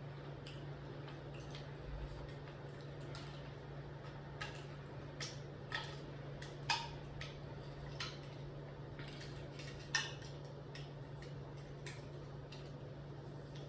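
Irregular small clicks and taps of a liquor bottle and its cap being handled while someone struggles to get it open, over a steady low hum.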